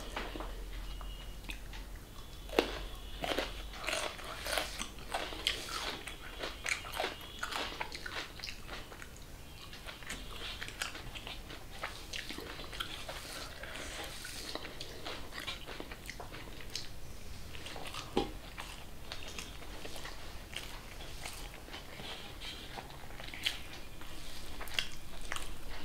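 Close-up eating sounds: a person chewing and smacking a mouthful of rice mashed with egg and potato, with irregular sharp mouth clicks, a louder one near the start and another about two-thirds through. Her fingers mash the rice against a metal plate.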